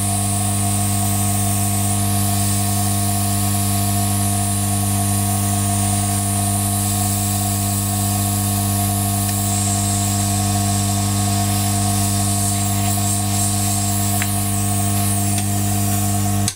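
Hot air rework station blowing steadily at full heat, a constant hiss over a steady hum, melting the solder that bonds the CPU die to its copper heat spreader.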